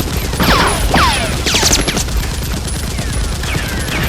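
Rapid automatic gunfire, an unbroken stream of shots. Several falling whistling whizzes sound over it, about half a second, one second and one and a half seconds in, and again near the end.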